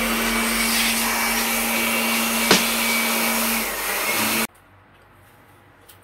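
Portable electric pressure washer running steadily, with one sharp click about two and a half seconds in; the machine noise cuts off suddenly about four and a half seconds in.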